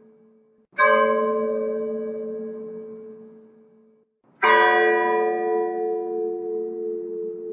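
Church bell tolling slowly for a funeral: two heavy strikes about four seconds apart, each ringing out and slowly fading, the second on a different note and still ringing at the end.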